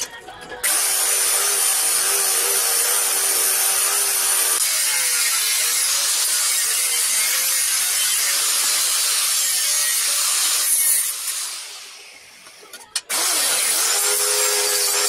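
Powered belt file grinding a steel gauntlet plate, throwing sparks, with a steady motor whine. It runs for about ten seconds, spins down and stops, then starts again about two seconds later.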